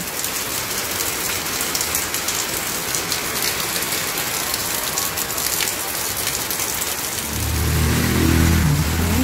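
Heavy rain pouring steadily onto garden plants and surfaces. About seven seconds in, a low engine drone comes in under the rain and grows louder near the end.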